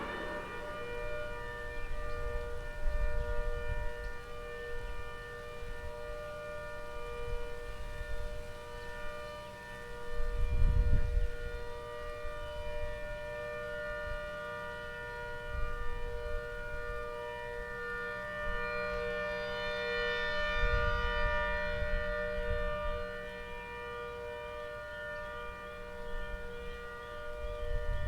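ACA Hurricane 130 siren, heard from about 1500 feet away, holds a steady multi-note wail at full speed after winding up. Low rumbles come and go underneath a few times.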